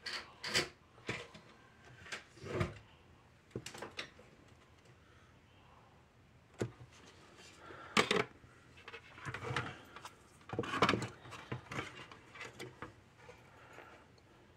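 Irregular clicks, taps and knocks of small tools and parts being handled on a workbench while a bulb is desoldered from a fence energizer's circuit board.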